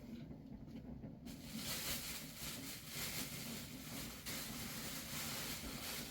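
Steady hiss of rain falling that starts suddenly about a second in, over a low background hum.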